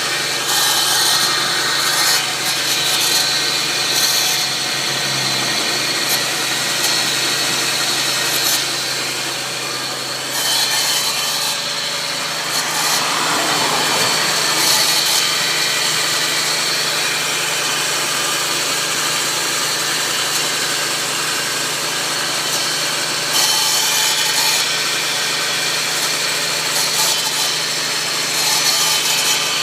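Nissan Xterra's supercharged 3.3-litre V6 (VG33ER) running under the hood with a steady rough rasping, grinding noise over the engine note, which the owner suspects comes from the Eaton M62 supercharger.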